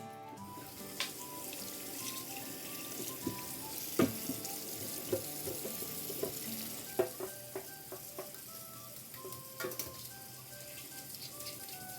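Tap water running into a sink with a steady hiss, with scattered knocks and clatters, the loudest about four and seven seconds in. Soft background music plays underneath.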